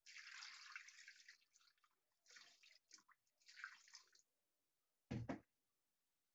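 Water pouring and splashing over fish pieces in a steel bowl as hands rinse them, in three bursts over the first four seconds. About five seconds in comes a quick double knock, the loudest sound.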